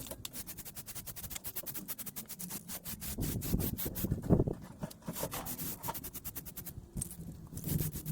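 Rapid back-and-forth rubbing strokes, about seven a second, getting louder around three to four seconds in and thinning out near the end.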